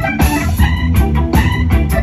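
Live band music: organ chords and electric guitar over bass and a steady, fast drum beat.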